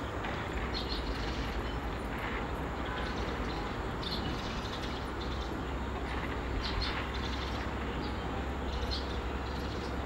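Outdoor city ambience: a steady hum of distant traffic with a low rumble, and short high-pitched chirps every second or so.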